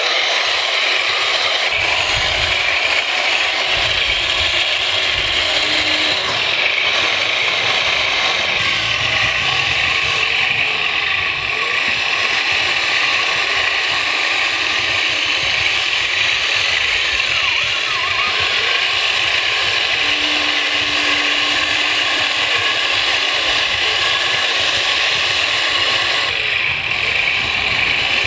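A 1/16 scale RC tank's electric drive gearboxes and metal tracks running, giving a steady, dense mechanical rattle and whir as it drives.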